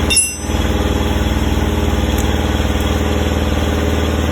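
A steady engine-like mechanical hum with an even rapid pulse, which drops out briefly just after the start and resumes unchanged.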